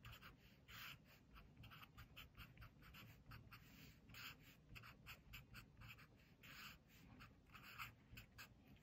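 Sharpie felt-tip marker writing on paper: faint, short, irregular scratchy strokes as numbers and letters are written out by hand.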